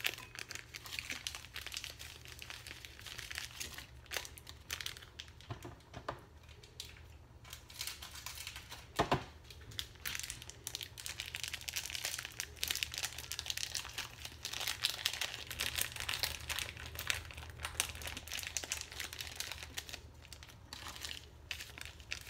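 A packet of bak kut teh herbs and spices being handled: continuous irregular crinkling and crackling, with a sharper crackle about nine seconds in, over a steady low hum.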